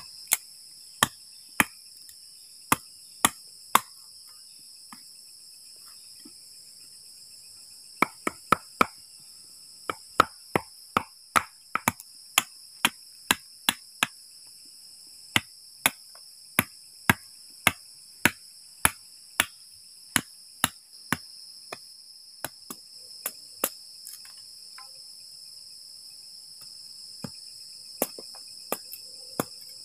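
Sharp knocks of a machete blade striking wood as stakes are cut and split, in runs of one or two a second with short pauses. A steady chorus of crickets trills underneath.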